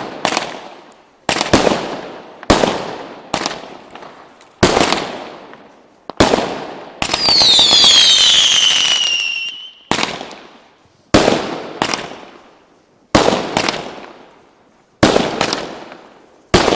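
Fireworks going off in a series of loud bangs, roughly one a second, each trailing off with an echo. About seven seconds in, a salvo of several whistles falling in pitch over crackling runs for about three seconds before the bangs resume.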